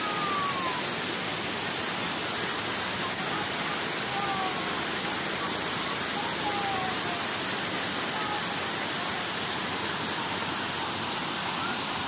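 Waterfall pouring down a rock face into a pool: a steady, unbroken rush of falling water.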